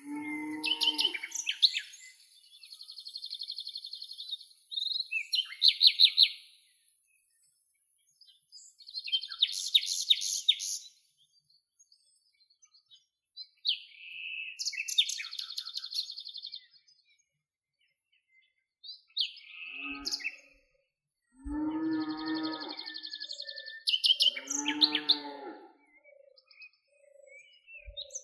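Birds singing in bursts of fast, high trills and chirps. Twice in the second half a longer, lower wavering animal call breaks in, and near the end a soft low note repeats about once a second.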